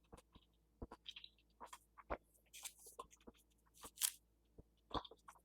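Someone chewing juicy orange segments: faint, irregular wet clicks and smacks of the mouth.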